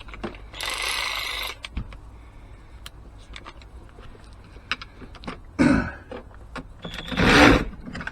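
Hand work on parts: a run of clicks and knocks, a hissing scrape of about a second near the start, and two louder scrapes near the end.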